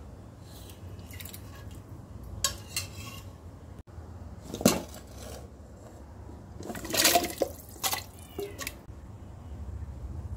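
Stainless steel kitchenware clinking and knocking: a steel slotted spoon against a steel cooking pot and bowl, with some splashing as chicken and vegetable pieces go into water. The clinks come irregularly, loudest about halfway through and again a couple of seconds later.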